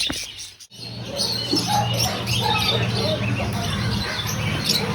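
Many small caged birds chirping together, with a steady low hum underneath. The sound cuts out abruptly under a second in and starts again.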